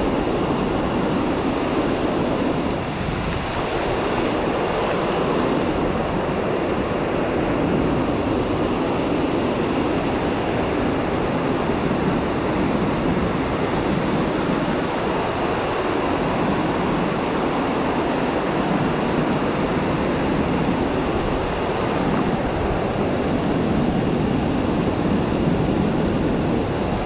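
Steady rush of surf breaking and washing up a sandy beach.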